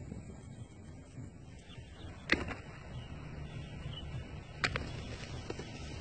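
Two bushbuck rams clashing horns: two sharp knocks about two and a half seconds apart, over a low steady rumble.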